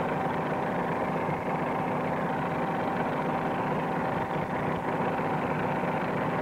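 Propeller airplane's piston engine running steadily in flight, a constant hum whose pitch does not change.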